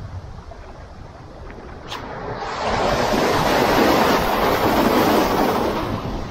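Ocean surf close by: a wave breaks and its foamy wash hisses in over the rocks, swelling about halfway through and fading near the end.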